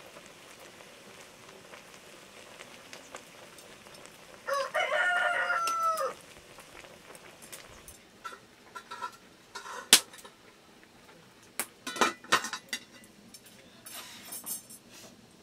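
A rooster crows once, a call of about a second and a half that drops in pitch at the end. Scattered sharp clicks and knocks follow, the sharpest about ten seconds in.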